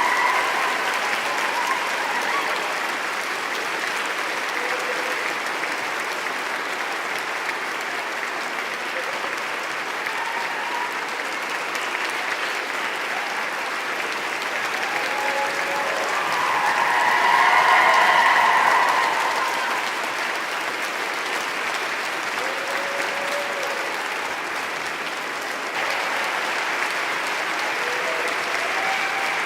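Crowd applauding steadily, with scattered cheering voices above the clapping that rise to a brief swell about two-thirds of the way through.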